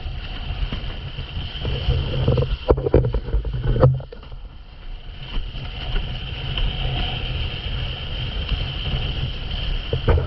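Wind buffeting an action camera's microphone and water rushing and splashing past a windsurf board planing at speed. A few heavier thumps and splashes come about three to four seconds in as the board hits chop, then the rush eases for a moment before building again.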